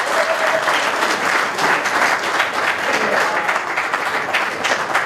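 Audience applauding: many hands clapping densely and steadily, with a few faint voices under it.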